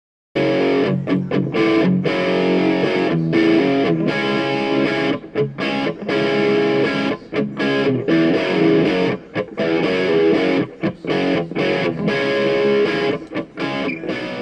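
Outro music with distorted electric guitar, starting abruptly a moment in.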